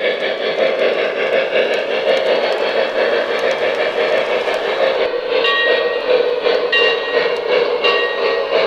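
Lionel O-gauge Strasburg #89 2-6-0 steam locomotive and passenger cars running on a model layout, with a steady rushing running noise. From about five seconds in, a short ringing tone repeats at a steady pace over it.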